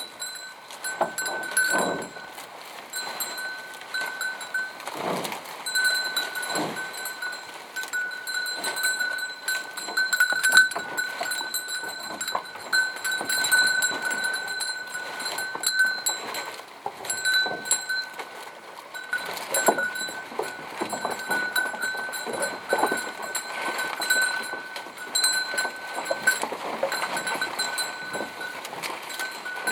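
Goats bleating now and then, over a steady high-pitched drone that breaks off briefly every few seconds.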